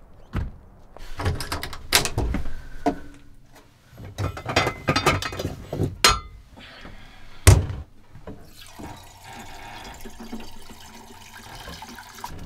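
Cookware knocking and clattering as pots are handled, with one loud thunk, then water pouring steadily from a plastic water jug's spigot into a saucepan for the last few seconds.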